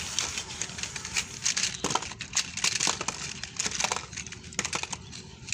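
Small toy cars clattering against each other as hands push them together and shuffle them, a quick, irregular run of light clicks and knocks.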